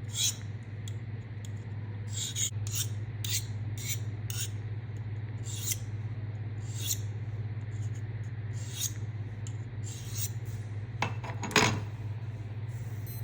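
Pocket-knife blade scraped in short, irregular swipes, about a dozen, with a longer and louder stroke near the end, over a steady low hum. These are sharpening or edge-testing strokes.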